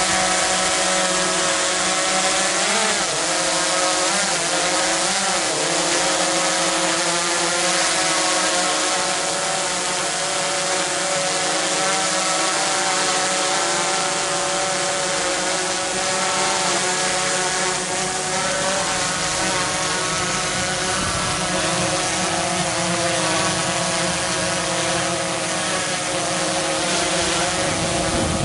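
DJI Phantom 3 Advanced quadcopter in flight: its four electric motors and propellers give a steady multi-toned buzzing whine, its pitch wavering briefly a few seconds in as the drone manoeuvres.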